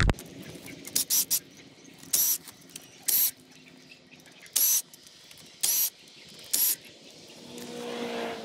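Cordless impact wrench run in seven short bursts of about a third of a second each, spinning fasteners off the front wheel hub of a 1995 Mitsubishi Montero.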